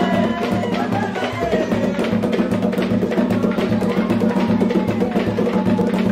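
Percussion music: drums and sharp wooden clacks playing a steady, busy rhythm over a low beat about twice a second.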